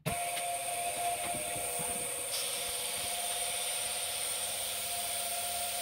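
Vacuum pump of an ELKOM vacuum press table running steadily, a hiss with a steady whine and a thin high whistle, drawing the air out from under the plastic film so that the glass-fibre laminate segment cures free of bubbles.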